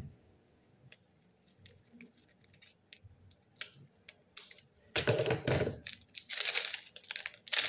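Scissors snipping open a plastic-foil powder sachet: a string of small sharp clicks and crinkles. From about five seconds in comes louder rustling.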